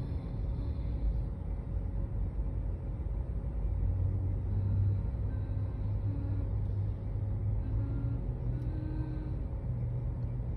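Low steady vehicle rumble heard from inside a car cabin in stopped traffic, growing a little stronger about four seconds in.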